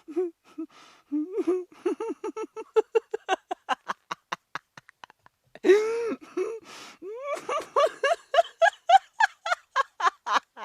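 A woman laughing in two long fits of rapid, rhythmic 'ha-ha' pulses. The second fit starts with a loud burst a little past halfway.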